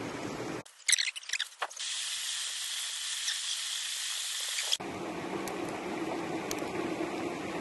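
Food sizzling in a pan on a camp stove. It opens with a few quick clinks and scrapes of a utensil, then a steady sizzle that cuts off suddenly.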